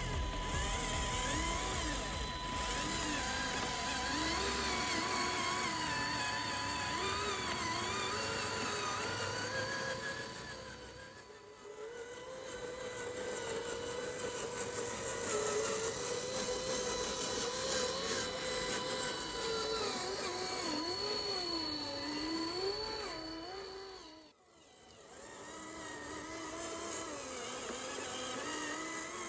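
Whining motors of radio-controlled model vehicles, the pitch wavering up and down as the controls are worked. The sound dips about eleven seconds in and cuts out briefly about twenty-four seconds in.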